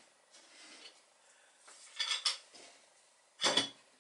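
Brief metallic clinks and knocks of hand saws being handled on a wooden workbench: a couple about two seconds in and a louder one near the end.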